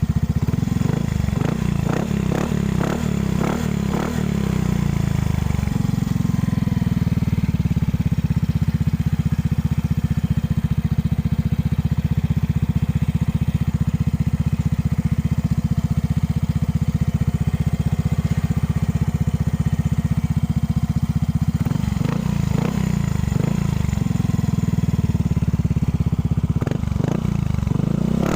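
Yamaha Mio i 125S scooter's single-cylinder engine running through a gutted (kalkal) stock exhaust pipe, with its baffles dug out. It runs steadily, with bursts of quick throttle blips in the first few seconds and again from about three quarters of the way in.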